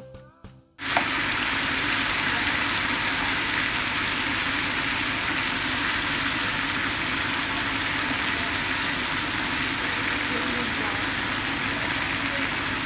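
Chicken pieces frying in butter in a nonstick pan: a loud, steady sizzle that starts abruptly about a second in, after a few notes of music.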